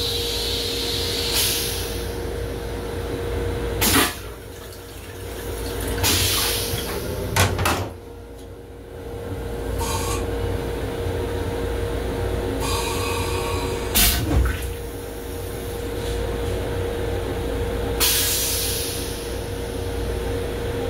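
Train toilet's flush cycle: water spraying into the stainless-steel bowl in a series of short, loud bursts over a steady hum.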